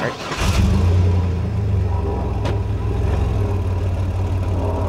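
Chevrolet Blazer's engine started: a brief burst of cranking that catches within about half a second, a quick flare of revs, then steady idling.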